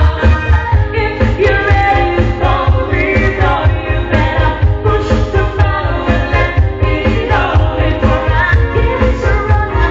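Pop song playing loud, with singing over a steady heavy beat.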